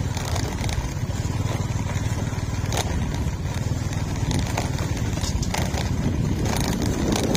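Small motorbike running along a dirt track, a steady low rumble with a few sharp clicks and knocks.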